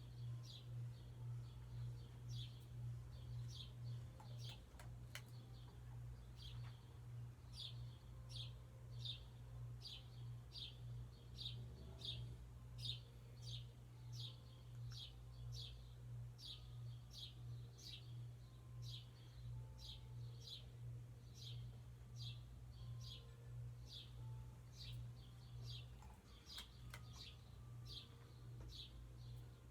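1984 NuTone Hacienda 52-inch ceiling fan running, its motor giving a low steady hum that swells and fades in a regular beat. A short, high chirp repeats evenly about one and a half times a second over it.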